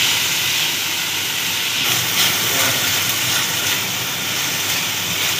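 Diced carrot, onion and garlic sizzling steadily in hot oil in a frying pan as they are stirred with a silicone spatula, with the carrots softening as they cook.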